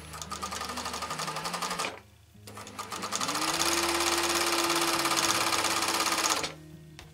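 Sewing machine stitching a hem: a run of rapid stitches that stops about two seconds in, then after a short pause the machine speeds up, its motor whine rising, and stitches fast and steady until it stops near the end. The first short run is the backstitch that locks the start of the seam, the long run the forward stitching along the hem.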